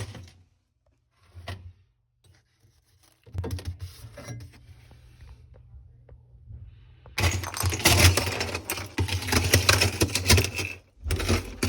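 Thin sheet-metal rear panel of a Whirlpool freezer being bent and worked loose from the ice it is frozen into. It starts with a single knock, then scraping and a low hum, then dense loud crackling and clattering through the last few seconds.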